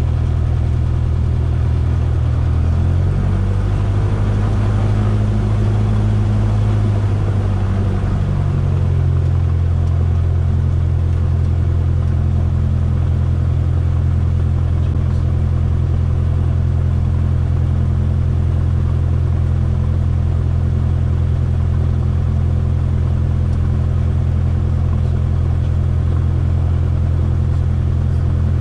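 Single-engine light aircraft's piston engine and propeller running at low power on the ground, heard from inside the cockpit. The engine speed shifts for a few seconds about 3 seconds in, then settles to a steady idle.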